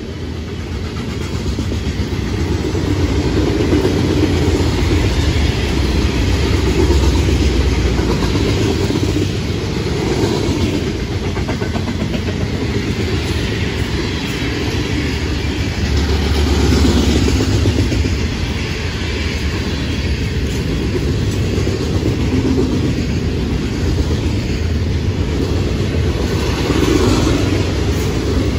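Freight train's hopper cars rolling past close by: a steady rumble of steel wheels on the rails, rising and falling a little in loudness.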